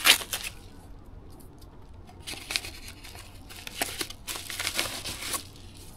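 Cardboard mailer envelope being torn open, with a loud rip at the start, then several bouts of cardboard and paper rustling as it is pulled apart and searched.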